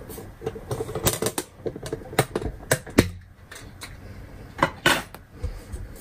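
Handling clatter from the iMac's loose glass front panel being carried and set aside: a run of light clicks and knocks, with two louder clacks close together nearly five seconds in.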